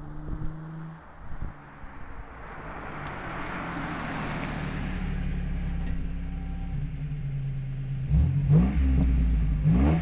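Ford Mustang 3.8-litre V6 through a Flowmaster 10 Series single-chamber muffler: the engine and exhaust grow steadily louder, then the engine is blipped twice in quick succession near the end, about a second and a half apart, each rev rising sharply in pitch.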